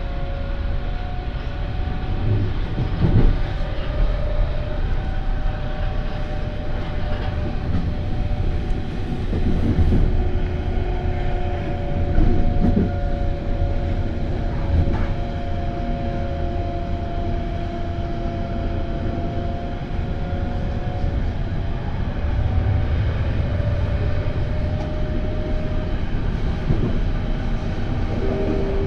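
Berlin S-Bahn electric train running, heard from inside the passenger car. A steady low rumble of wheels on rail carries a whine held at two pitches that drift a little, with a few knocks from the running gear.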